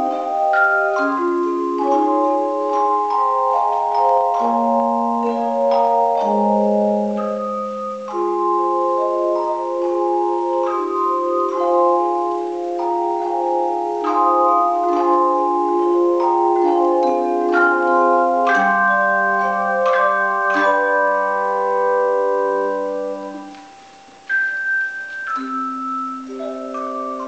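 Tone chimes played by an ensemble, ringing out a hymn in sustained chords, each note struck and left to ring. About three-quarters of the way through, the chimes die away briefly before a new phrase starts.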